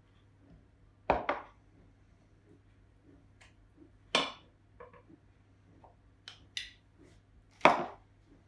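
Metal spoon clinking against a saucepan and a glass honey jar while honey is spooned out. Three sharp clinks about three seconds apart, the last the loudest, with a few lighter clicks between.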